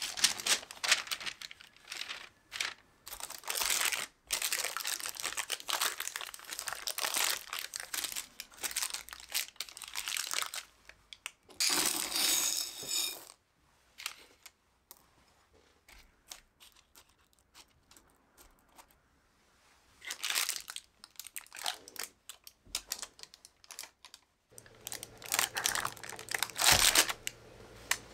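Baking paper crinkling and rustling as it is pressed into a tart shell, then a shower of small metal pie weights poured in with a brief clatter about twelve seconds in, followed by sparse clicks as they are spread out. Near the end there is more paper rustling over a faint low hum.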